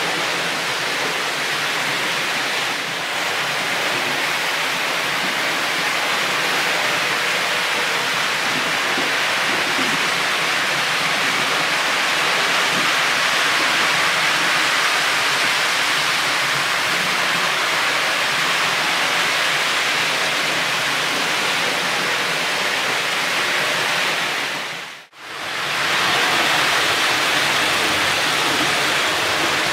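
HO-scale Märklin model trains running past on the layout: a steady, dense rushing rattle of wheels on the metal track. The sound drops out for a moment about 25 seconds in, then carries on as before.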